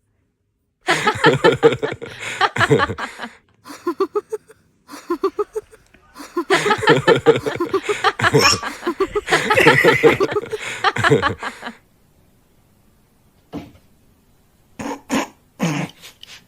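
A person's voice making wordless sounds in quick bursts, like laughing and coughing. It goes quiet for about two seconds near the end, then a few short bursts follow.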